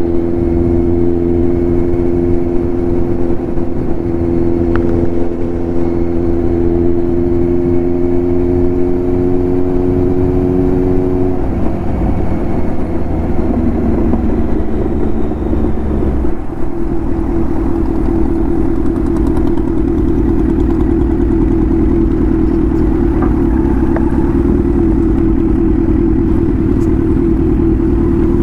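Kawasaki Z900 inline-four engine with an Arrow titanium exhaust, running at a steady engine speed under way. About eleven seconds in the note changes and turns rougher for a few seconds, then holds steady again.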